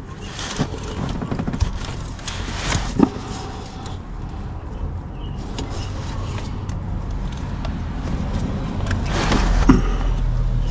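Hands and sleeve rustling and scraping against parts in a diesel engine bay, with a few sharp clicks, while the fuel filter housing's heater plug is worked loose. A steady low hum runs underneath.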